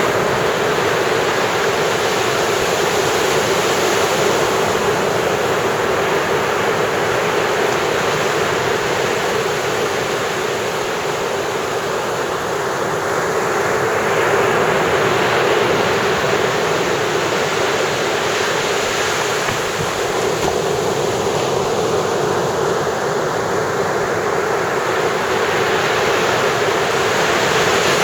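Ocean surf on a sandy beach: a continuous rush of breaking waves, swelling every several seconds as each wave breaks and washes up the shore.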